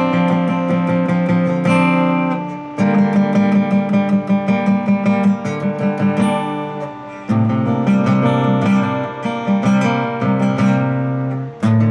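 Guitar playing: rapidly repeated chords that change about three seconds and about seven seconds in.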